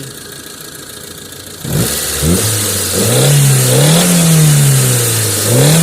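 Mitsubishi engine idling, then revved about two seconds in, the pitch climbing and falling back twice. The engine is being checked for low power and misfire, which the mechanic puts down to retarded timing.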